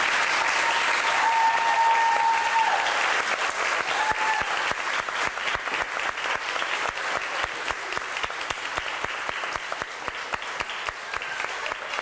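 Audience applauding, dense at first and then thinning out into scattered separate claps.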